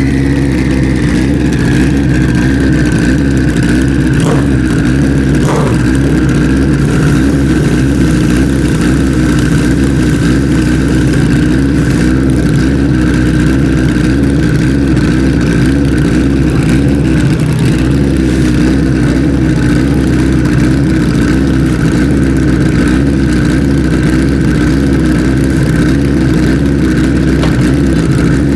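Pro street drag motorcycle engines idling loudly and steadily at the starting line, with a steady high whine above the engine note.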